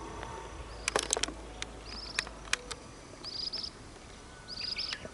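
A bird's short, high chirping call, repeated three times about a second and a half apart, with a few sharp clicks in the first half.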